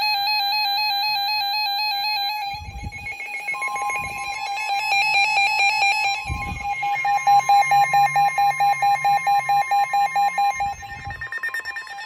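Several NOAA weather radios alarming at once: overlapping electronic beeping and warbling alert tones, joined about three and a half seconds in by a steady tone near 1 kHz, the weather-radio warning alert tone that signals an incoming warning broadcast. From about halfway a fast beeping of about five a second dominates, with a few dull thumps.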